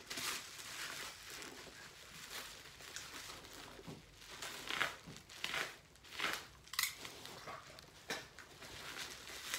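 Plastic bubble wrap crinkling and crackling in irregular bursts as it is handled and pulled off a small bottle by hand.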